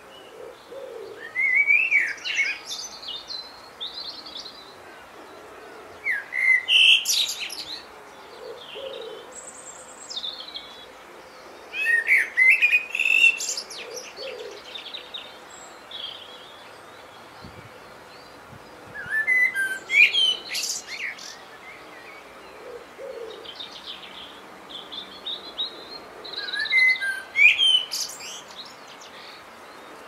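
Wild birds singing: a songbird gives short, varied phrases of quick rising and falling high notes about every six seconds, while a low hooting call repeats between the phrases.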